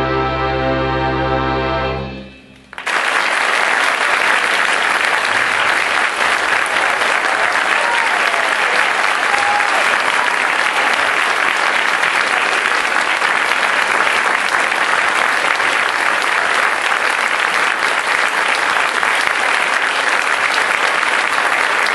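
A full orchestra holds the final chord of a piece, which dies away about two seconds in. The audience then breaks into steady applause.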